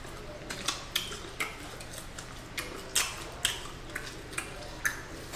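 Close-up eating sounds of chicken wings being chewed: irregular wet clicks and smacks of the mouth, about two a second.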